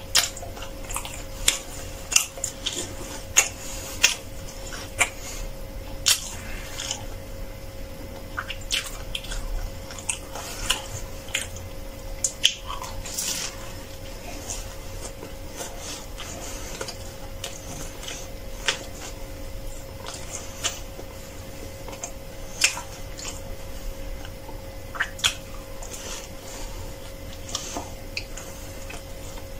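Close-up biting and chewing of a crisp-crusted flatbread sandwich filled with vegetables (cai jia mo), with frequent sharp crunches in the first half that thin out to occasional ones later.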